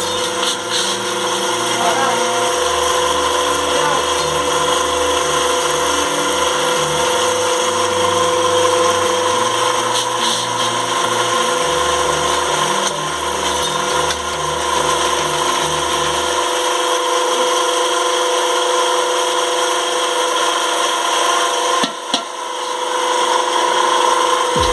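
Steady mechanical hum at a constant pitch, like a small motor running, with a deeper uneven drone underneath that stops about two-thirds of the way through.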